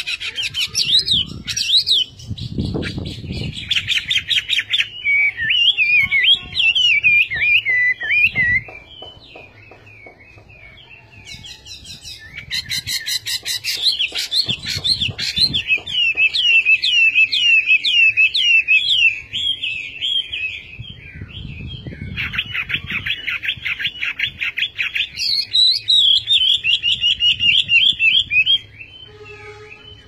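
Chinese hwamei singing loudly in long phrases of rapid, repeated whistled notes that swoop up and down. The song breaks for a few seconds about a third of the way in and stops shortly before the end.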